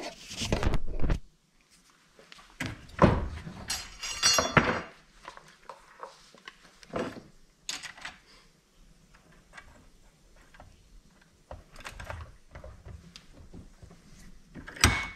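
A bench vise being loosened and retightened while a chainsaw is lifted out, turned round and clamped back in by its bar. Irregular thunks, clanks and rattles of the vise handle, metal jaws and saw body against the bench.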